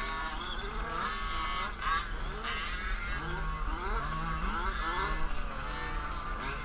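Several large-scale RC trucks' small two-stroke gas engines, one of them a Losi 5ive-T's Zenoah G320, revving up and down as they drive the track, their rising and falling whines overlapping continuously.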